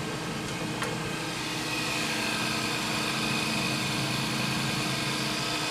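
Emco Compact 5 CNC lathe's spindle motor running steadily with a whine. A higher tone joins about two seconds in and it grows slightly louder. It runs smoothly, with no hopping.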